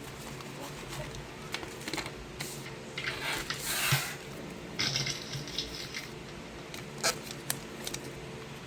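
Small handling noises: scattered sharp clicks and knocks, with a brief hissing rustle about three to four seconds in, over a faint steady hum.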